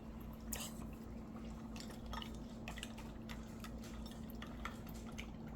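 Faint, irregular small pops, drips and clicks of liquid, from dry ice bubbling in a cup of juice, over a steady low hum.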